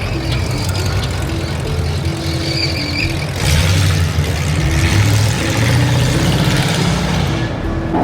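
A motor vehicle engine running steadily, with a rushing hiss from about three and a half seconds in until near the end.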